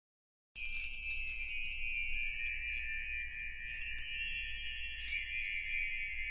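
Silence, then about half a second in a bright, high-pitched shimmer of jingle bells and chimes starts abruptly and carries on as light music.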